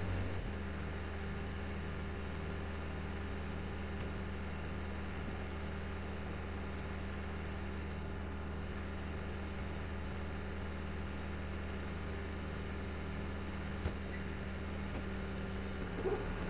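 Backhoe loader's diesel engine idling steadily. Its note steps down slightly just after the start and shifts again near the end.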